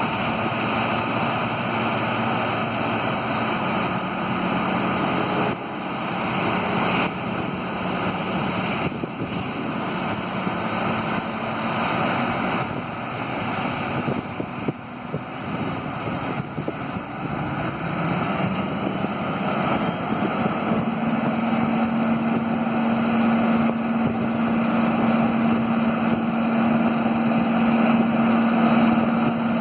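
Cummins diesel carrier engine of a Grove TMS-750B hydraulic truck crane running to power the hydraulics while the boom is lowered and raised. The engine speeds up a little past halfway and holds the higher speed.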